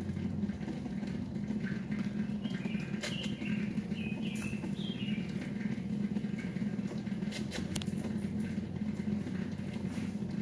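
Water from a garden hose pouring into a septic pump tank as it fills, a steady rushing splash. A few faint high chirps come through a few seconds in.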